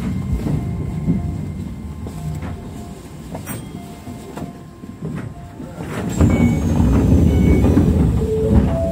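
Keisei electric commuter train running slowly, heard from the driver's cab: a low rolling rumble of wheels on track that grows louder about six seconds in.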